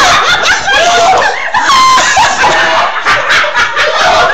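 A group of young people laughing and shrieking loudly at once, many high-pitched laughs and yells overlapping without a break.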